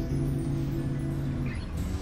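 Background music: a soft instrumental tune with held notes over a bass line.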